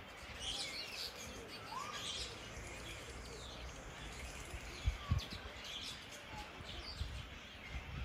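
Several birds chirping and calling, short high chirps and whistling notes scattered throughout, with two brief low thumps about five seconds in.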